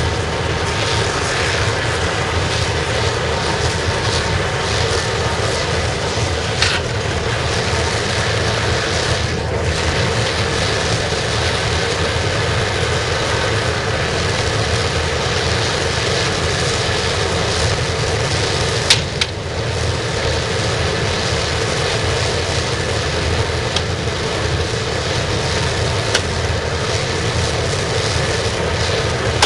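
Waste-oil burner firing a scrapping furnace: a steady roar of flame and forced air, with two brief clicks.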